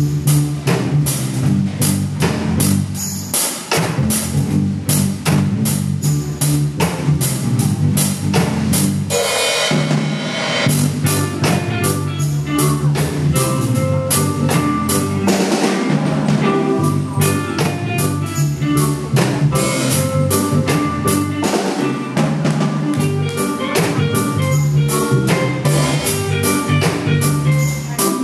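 Sonor drum kit played in a steady groove of bass drum, snare and cymbal hits over accompanying music with a sustained bass line. About nine seconds in, a cymbal rings out for a second or so.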